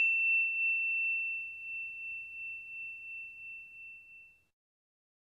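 A high, bell-like chime sound effect rings out from a single strike and fades away with a slow pulsing wobble, dying out about four and a half seconds in. It is the sting of an animated logo.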